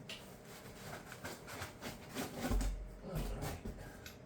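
Handling noise: scattered clicks and knocks, with a dull low thump about two and a half seconds in.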